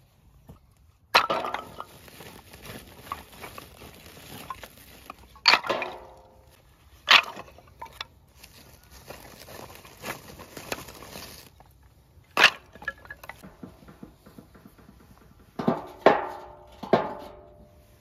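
Firewood sticks knocking and clunking against the inside of a perforated stainless-steel washing-machine drum, with a short metallic ring after the loudest knocks, about half a dozen sharp hits in all. Rustling of a woven plastic sack as the wood is pulled out runs under the first half and stops about two-thirds of the way through.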